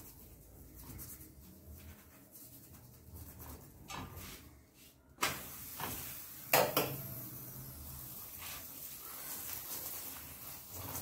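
Steel spoon knocking and scraping on an iron tawa as a paratha is flipped and oiled, with a sharp clank about five seconds in and a louder one a second and a half later. After the first clank there is a faint steady hiss of the paratha frying.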